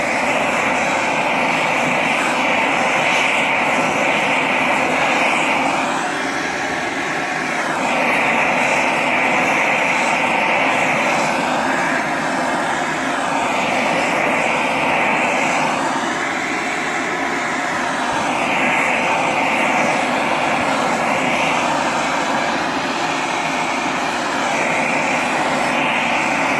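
Hand-held gas torch burning with a steady rushing hiss as its flame heats borax flux in a ceramic melting dish, glazing the dish. The hiss swells and eases every few seconds.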